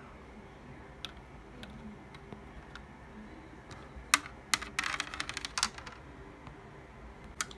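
Small plastic Lego pieces clicking. There are a few light taps, a sharp click about four seconds in, then a quick rattle of clicks for about a second, as the small round Lego piece used as a ball drops and bounces across the studded plastic baseplate.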